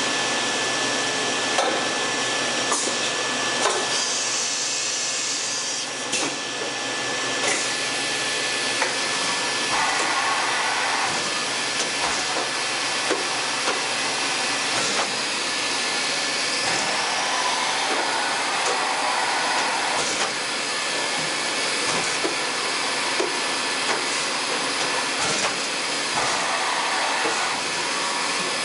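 A 1997 Fadal VMC4020 CNC vertical machining center is running, with a steady mechanical whir and a constant high tone throughout. A faint rising whine comes about halfway through, and there are short surges of noise and scattered light clicks as the spindle head and table traverse.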